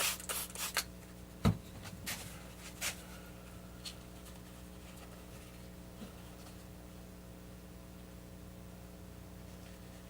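A few short rubbing and clicking handling sounds on the workbench, with one sharper knock about a second and a half in, then a steady low electrical hum.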